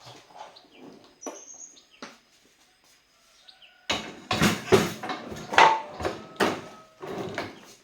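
Bird chirps, with a series of loud knocks and clatter starting about four seconds in.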